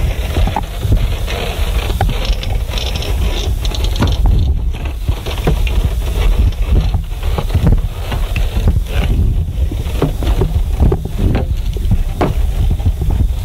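Rope-and-cable canopy suspension walkway creaking and crinkling underfoot as people cross it, heard as irregular clicks and knocks. Under them runs a heavy low rumble of wind and handling noise on the microphone, the loudest thing throughout.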